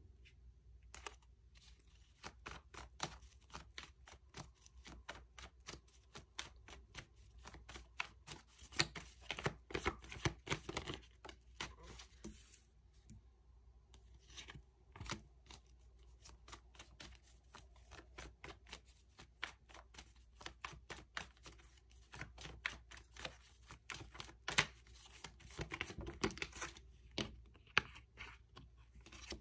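A deck of tarot cards being shuffled and handled by hand: a long, dense run of soft card clicks and flicks, busier about a third of the way in and again near the end.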